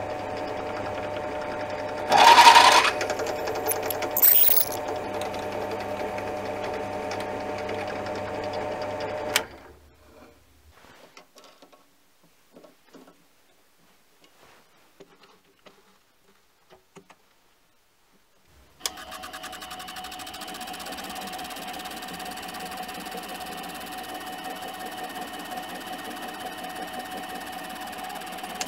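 Mini lathe motor and spindle running steadily while a cutter works into the bronze bushing of the tailstock casting, with a loud screech about two seconds in and a rising squeal just after. The machine stops at about nine seconds, leaving only a few small clicks as a centre drill is fitted in the chuck. It then runs steadily again for the last ten seconds, machining the casting.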